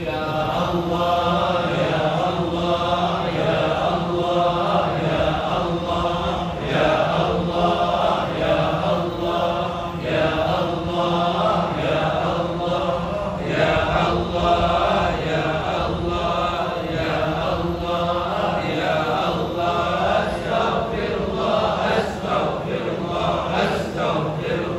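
Congregation chanting Arabic recitation together in unison, many voices blending into one continuous drone-like chant.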